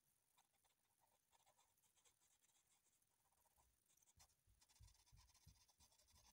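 Very faint pencil strokes scratching on drawing paper in short, repeated shading strokes. A few soft low thumps come a little past the middle.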